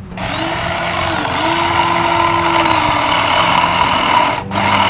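A motor running steadily, its whine dipping briefly in pitch about a second in; the sound drops out for a moment near the end.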